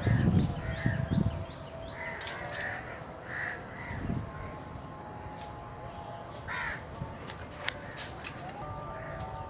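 Crows cawing, several short calls spread across a few seconds, with a louder low rumbling noise in the first second or so.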